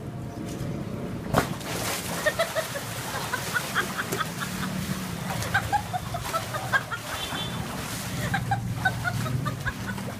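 Water splashing and sloshing in an inflatable pool as a man drops in with a sharp splash about a second in, then swims. Chickens cluck repeatedly in the background.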